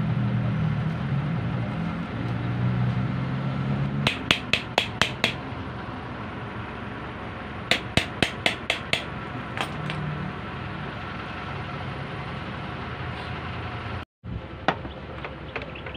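Two quick runs of about six sharp hammer taps on metal, roughly five a second, over a low steady hum.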